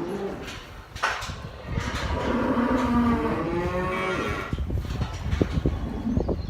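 Simmental cattle mooing: the tail of one moo at the start, then a single long bawl that bends in pitch from about two seconds in until about four and a half seconds, followed by a run of low knocks.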